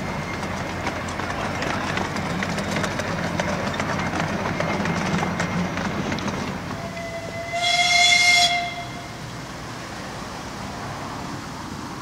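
A 7¼ inch gauge miniature train's wagons rolling past on the track, a steady rumble with many small clicks of the wheels, fading after about six seconds. About seven seconds in, a single high toot sounds for about a second and a half, the loudest sound.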